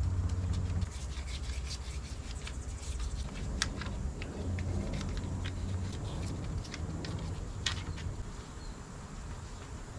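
Hand tools clicking and scraping against metal engine parts, scattered sharp clicks over a low hum.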